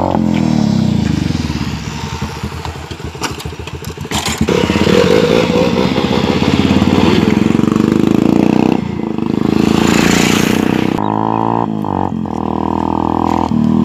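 Motorcycle engines running and revving as sport bikes ride past close by, the pitch falling as they go by. About nine seconds in, a rushing noise takes over for about two seconds before the engine note comes back and rises.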